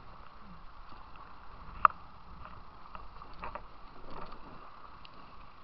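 River water running past a plastic whitewater kayak in a steady rush. One sharp knock about two seconds in is the loudest sound, with a few fainter knocks later.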